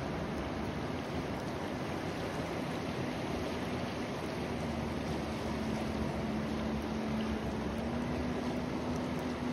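Fast river rushing steadily past the bank. A steady low hum joins in a few seconds in and rises slightly in pitch near the end.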